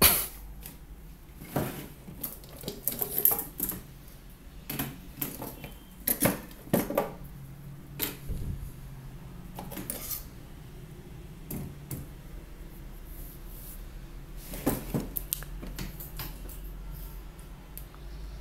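Metal hand tools (wire strippers, a screwdriver and scissors) set down and shifted on the plastic rollers of an incubator egg-turner tray: scattered clinks and knocks every second or two, with a faint steady low hum from the turner's 220 V synchronous motor underneath.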